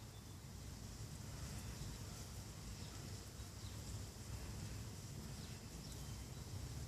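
Low, steady background rumble with a few faint soft ticks of wires and a connector being handled.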